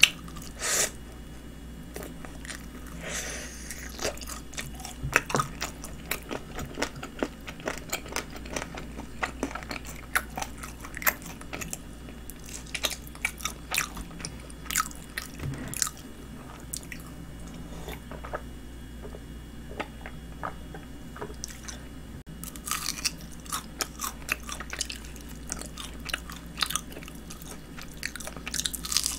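Close-miked biting and chewing of honey-glazed fried chicken (Kyochon Honey Combo), with many short, sharp crunches of the crispy coating.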